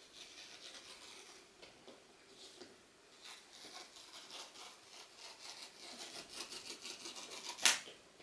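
Cardboard and paper packaging rubbing and scraping as a laptop box is opened, building into a fast crackly scratching over the last couple of seconds and ending in one sharp tap near the end.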